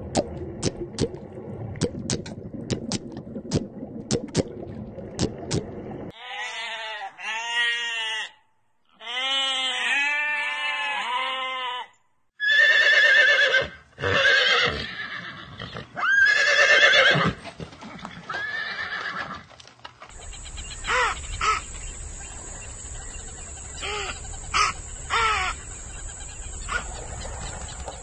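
A run of animal sounds with hard cuts: crackling and clicking for the first six seconds, then quick repeated pitched calls, then horses neighing, three loud neighs followed by weaker ones. Near the end there are scattered clicks over a steady high tone.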